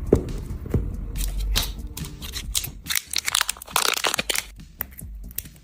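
Handling noise: a run of small clicks and taps with crinkly rustling, thickest about three to four seconds in, as the vacuum cleaner's battery pack and test gear are handled.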